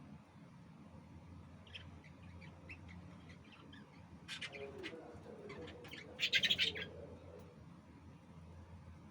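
Lovebirds chirping: scattered short high chirps, growing louder, then a loud burst of rapid chattering about six seconds in.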